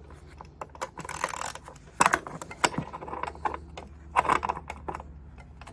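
Metal hand tools clinking and rattling as they are handled, in several separate bursts of clatter, over a faint low steady hum.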